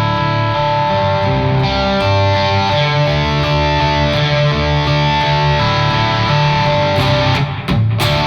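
Single-coil electric guitar played through three stacked overdrive pedals with a touch of Memory Man delay: sustained chords with a saturated overdrive tone, and a brief break about seven and a half seconds in.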